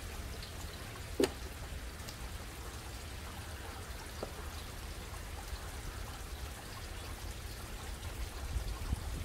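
Steady trickle and splash of water in a backyard aquaponics fish tank, with one sharp click about a second in.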